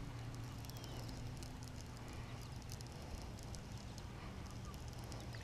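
Fishing reel being cranked to bring in a hooked blue catfish: irregular light ticks and clicks over a steady low hum.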